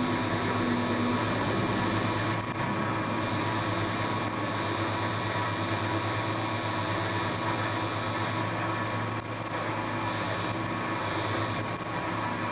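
Milling machine running with an end mill cutting a slot in soft metal stock over a steady motor hum. The high cutting hiss stops and restarts several times as the cut comes and goes.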